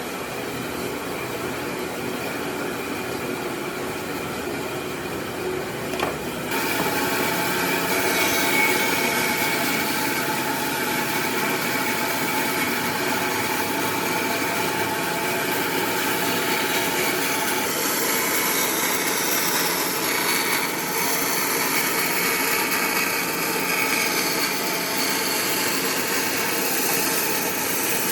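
A handheld power tool running steadily against wood, getting louder about six seconds in as it bites into the work.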